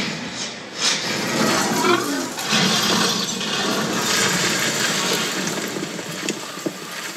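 Action-film soundtrack played over a cinema loudspeaker array: a loud, steady rush of sandstorm wind and blowing sand after a car crash, with a few faint sliding tones in the first two seconds.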